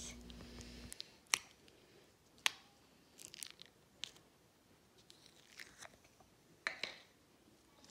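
A finger poking and pressing a shampoo-and-water slime in a small plastic tub, giving faint, scattered wet clicks and pops, about a dozen of them.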